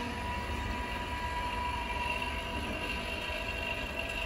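Vacuum pump of a SameKing S1T OCA vacuum laminating machine running steadily with a low hum and a high whine, pumping down the chamber at the start of a lamination cycle.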